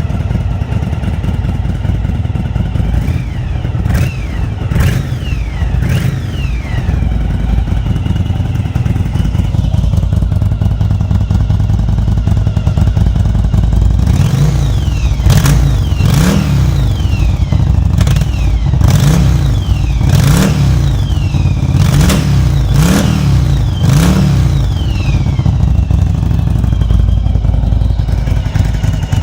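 1996 Yamaha Virago XV750's air-cooled V-twin running through a debaffled exhaust. It idles at first, with a few sharp cracks, then is revved in a series of short throttle blips about once every second or two, each with a sharp crack. It settles back to idle near the end.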